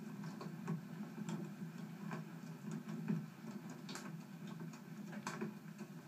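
Wood fire burning in a fireplace: logs crackling with irregular sharp pops over a low steady rumble.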